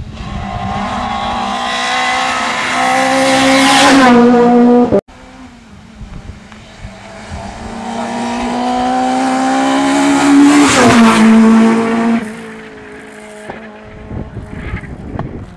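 Rally car engines at full throttle, passing twice. A car approaches with its engine note climbing and goes by close, and the sound cuts off suddenly about five seconds in. Then another pass builds up and rushes past about eleven seconds in, its note dropping as it goes.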